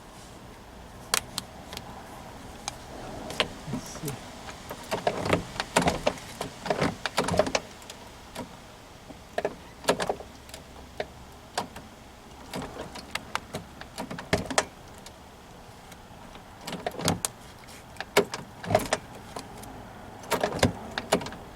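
Irregular small clicks, taps and scrapes of a plastic straw being worked down the lock-knob hole of a car door, probing for the loose lock rod inside.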